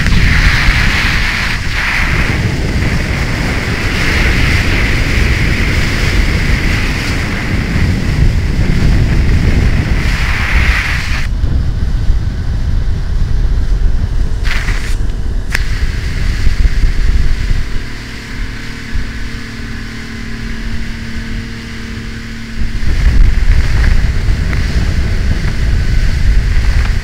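Motorboat running at speed over open water: heavy wind buffeting on the microphone and the rush of the wake and spray. About two-thirds of the way in the wind noise drops for a few seconds and the engine's steady hum shows through, before the buffeting comes back loud.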